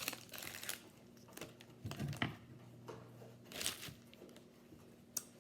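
Faint, scattered crinkling and rustling of a trading-card pack wrapper being handled and opened, in a few short bursts.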